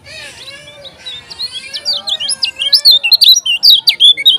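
Kecial kuning, a yellow white-eye, singing a fast run of high, sharp chirping notes that grows louder through the second half.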